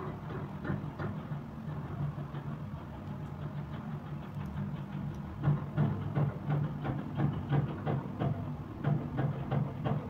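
Metal palette knife spreading and mixing thick, wet acrylic paint, making short sticky clicks and scrapes that come more often and louder from about halfway through, over a steady low hum.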